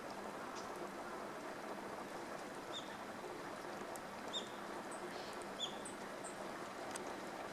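Outdoor ambience by a pond: a steady low background rush, with a scattering of short, high-pitched chirps from small birds, most of them between about three and six and a half seconds in.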